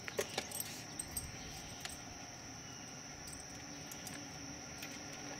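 Steady high-pitched insects chirring, with a few light clicks and rustles in the first two seconds.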